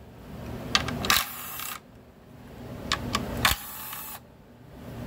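Milwaukee cordless driver spinning out the speed-sensor bolts in two short bursts of about half a second each, one about a second in and one about three and a half seconds in, with a few small clicks of the socket on the bolts.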